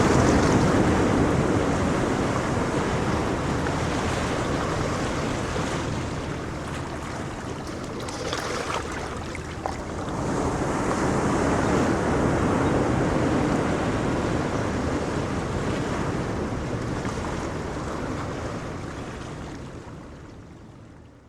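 Ocean waves surging and washing on the shore in a steady rush, swelling twice and then fading out near the end.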